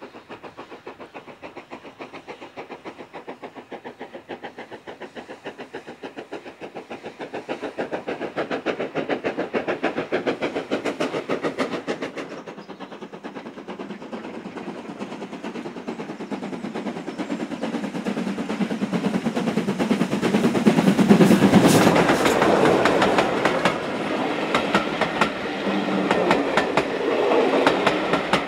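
Steam locomotive working hard with a train, its exhaust beats fast and even. Then BR Standard Class 7 'Britannia' No. 70000 approaches, its exhaust beats growing louder until it passes about two-thirds of the way through, followed by the coaches rolling by with a clatter of wheels over the rail joints.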